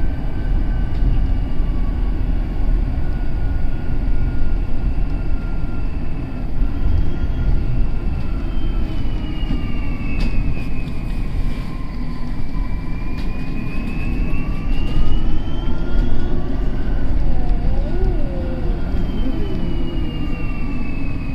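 German bus running with a heavy low rumble and a high, jet-like whine that slides down and back up in pitch, like an airplane.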